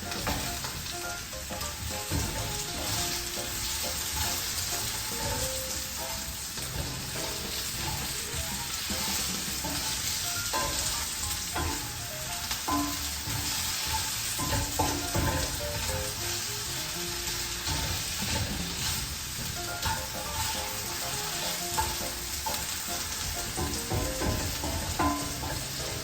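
Small-cut potatoes frying in a pan, a steady sizzle, with a few short knocks here and there.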